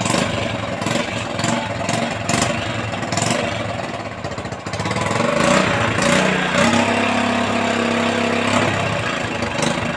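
Motorcycle engine running at idle, with short knocks and clicks over the first few seconds. A steadier, even hum holds for a couple of seconds after the middle.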